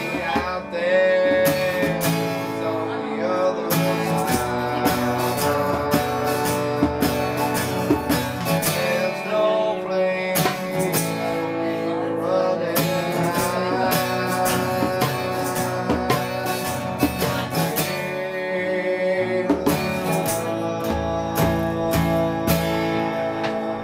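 Acoustic guitar strummed in a steady rhythm, with a man singing and a trombone playing along in a loose acoustic jam.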